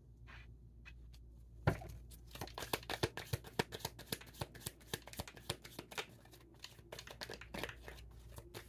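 A deck of reading cards being shuffled by hand: one sharp tap about two seconds in, then a long run of quick papery clicks.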